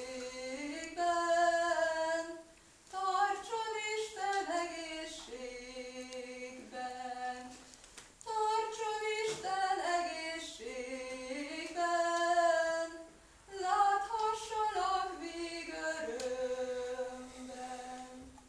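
A woman's voice singing a Hungarian folk song solo and unaccompanied, in phrases of held notes with short pauses for breath between them.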